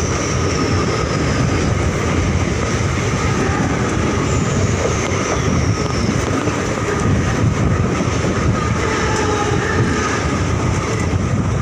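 Mumbai suburban electric local train running, heard from its open doorway as another local passes close alongside on the next track: a steady, loud rumble of wheels on rails. A high whine falls in pitch twice, once near the start and again about four seconds in.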